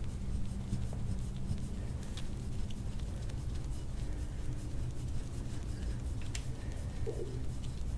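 Soft-tissue scraping tool drawn over the skin of the back and shoulder: faint scraping strokes with a few light clicks, over a steady low hum.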